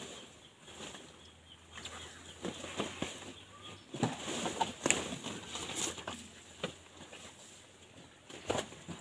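Rustling and scattered snapping clicks of cut leaves and stalks being gathered and handled, busiest around four to six seconds in.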